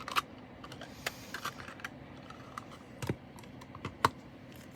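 Irregular light clicks and taps from handling small bags of plastic diamond-painting drills. The clicks are scattered, with a sharper one a little after four seconds in.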